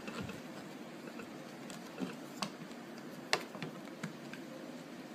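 Faint steady hiss of a room air conditioner, with a handful of small clicks and taps from hands working polymer clay on a plastic toy rifle, the sharpest a little past halfway.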